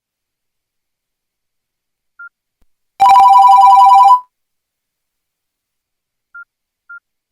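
Nokia N95 phone tone: one loud electronic buzz of two notes sounded together, lasting about a second, starting about three seconds in. Faint short beeps come once before it and twice near the end.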